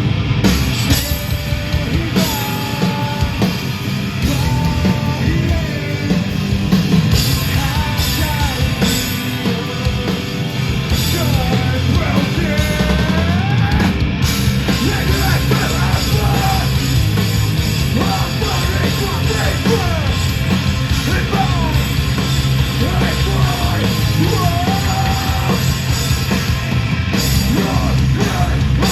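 Live metalcore band playing a loud, heavy song, with dense drums and bass under yelled and sung vocals.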